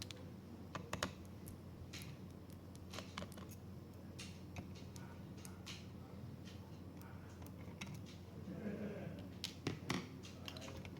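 Small irregular clicks and taps of laptop parts and tools being handled during disassembly, over a steady low hum.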